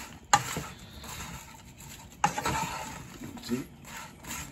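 Wooden spatula stirring shrimp and onions in a nonstick frying pan, knocking sharply against the pan twice, near the start and again about two seconds in, with scraping and clattering in between.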